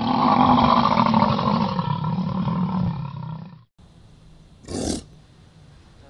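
American bison growling: one long, rough, low growl that runs for over three seconds and cuts off, followed about a second later by a short, sharp snort.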